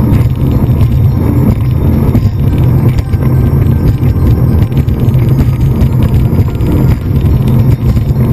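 Speedboat running fast: a steady low engine drone under heavy wind buffeting on the onboard microphone.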